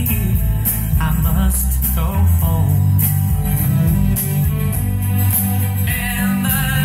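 A song with singing over guitar and a heavy bass line, played back through hi-fi loudspeakers in a room.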